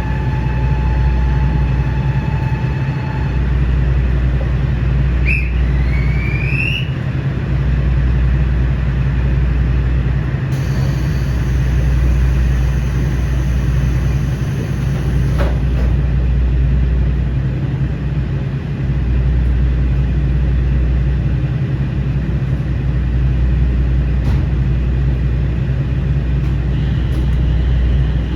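KiHa 40-series diesel railcar's diesel engine running with a steady low drone. A steady tone sounds for the first few seconds, a short rising squeal comes about five seconds in, and a high hiss runs from about ten to fifteen seconds in.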